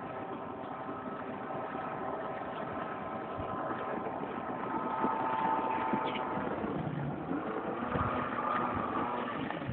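Watercraft engine running steadily with a whining tone; it gets a little louder about halfway through and wavers more near the end.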